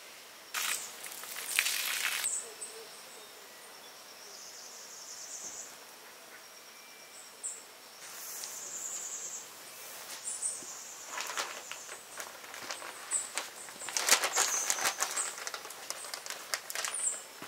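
Tropical hillside ambience: a steady high insect buzz and short bird chirps. A few louder bursts of noise break in, the loudest around two seconds in and again about fourteen to sixteen seconds in.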